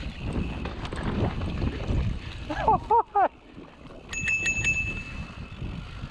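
Mountain bike rolling over dirt singletrack, with a rumble of tyres and trail, then a brass handlebar bell rung four times in quick succession about four seconds in.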